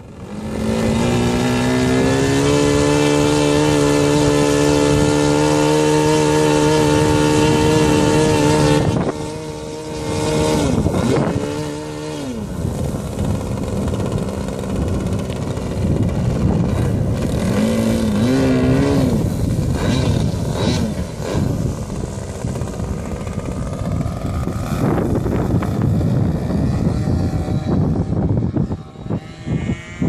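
O.S. 55AX two-stroke glow engine of an RC Katana aerobatic plane running at a high, steady pitch for about eight seconds, then throttled back and rising and falling with the throttle through the takeoff and climb. The engine is still being broken in.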